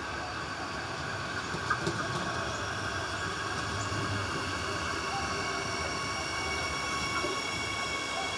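Adelaide Metro 4000-class electric train pulling into the station platform. It rumbles steadily, and a high-pitched whine grows louder toward the end, with a couple of short clicks about two seconds in.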